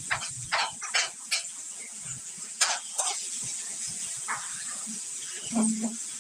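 Onion and garlic sizzling in hot oil in a metal wok, with a steady hiss. A metal utensil scrapes and knocks against the pan as they are tipped in and stirred.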